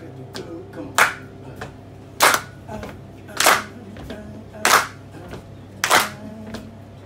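Slow, steady hand claps, five sharp claps about 1.2 seconds apart, with faint held notes from the band's guitar and bass underneath.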